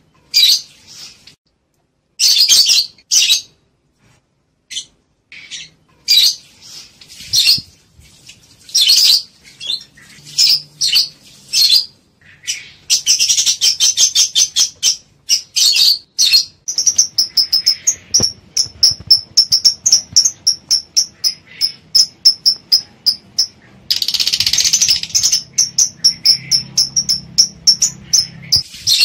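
Lovebirds chirping in sharp, high calls: scattered at first, then from about halfway a fast run of repeated chirps, several a second, broken by bursts of dense chatter. These are the calls of lovebirds in breeding condition, wanting to mate.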